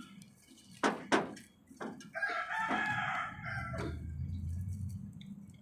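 A rooster crowing once, one long call of about a second and a half, preceded by two sharp knocks about a second in.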